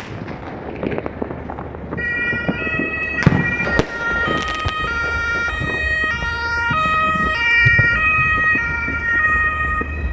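Fireworks popping and crackling. From about two seconds in, a louder run of steady high notes joins them, stepping up and down in pitch over one held note like a tune.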